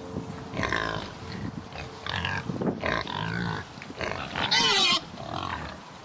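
A pig's calls: about six short grunts and squeals in a row, the loudest a high, wavering squeal near the end.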